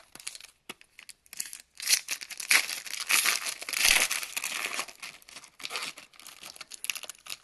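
Foil wrapper of a baseball card pack being torn open and peeled apart by hand: a few light clicks, then dense crinkling and tearing from about a second in, heaviest in the middle and thinning near the end.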